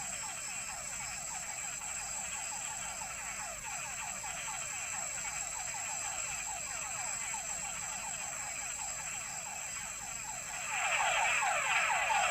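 Chorus of male túngara frogs (mud puddle frogs): many overlapping short whines, each falling in pitch, repeated densely. The chorus grows louder about eleven seconds in.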